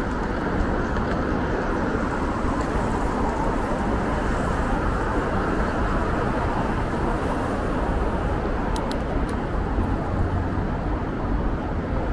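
Steady city street traffic noise heard from a moving bicycle, with a few sharp clicks about nine seconds in.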